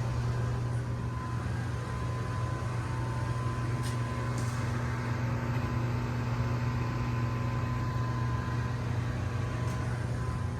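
Steady low mechanical hum of running machinery, even throughout, with a faint high steady whine above it.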